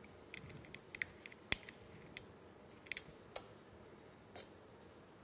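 A run of light, irregular metallic clicks and taps from a wrench working the oil drain plug loose on an air compressor, with one last click a second later.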